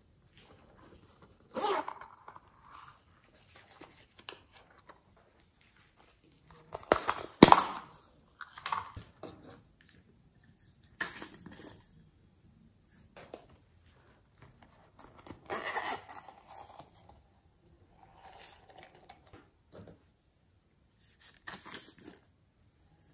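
Plastic toy capsules being handled and opened, with sequins and glitter shaken out of them: a series of short rustles, rattles and clicks, the loudest a sharp click about seven and a half seconds in.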